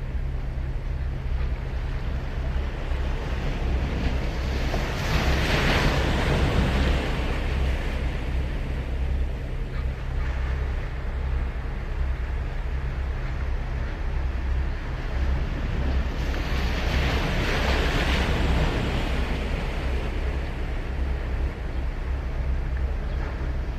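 Sagami Bay surf breaking and washing up a sandy beach, two waves swelling and fading: one about a quarter of the way in, another about two-thirds in. A steady low rumble of wind on the microphone runs underneath.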